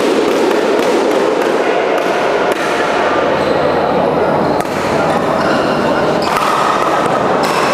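A badminton rally: sharp racket strikes on the shuttlecock and players' footfalls on the court, over a constant din of spectator chatter.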